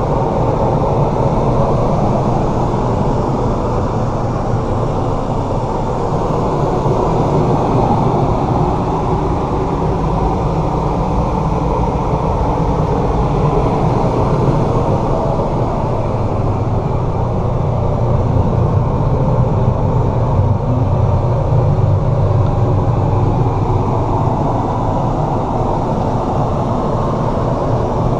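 Forest River R-Pod RP177 travel trailer's air conditioner running steadily, a loud, even hum and rush of fan air.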